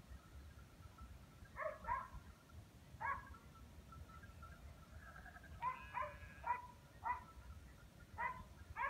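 A dog barking in short, irregular bursts, about nine barks in small clusters, over a low, steady background rumble.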